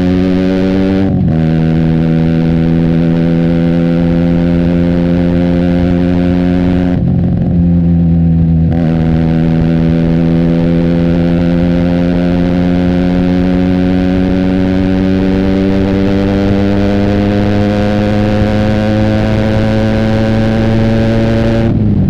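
Benelli TNT 300's parallel-twin engine through an Austin Racing exhaust, pulling under load with its pitch climbing steadily. The note breaks briefly with the throttle off about a second in, again from about seven to nine seconds in, and near the end.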